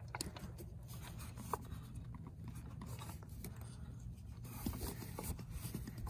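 Faint rubbing and small ticks of hands fitting the plastic shifter-cable end onto the short shifter's ball stud, with a low steady hum underneath.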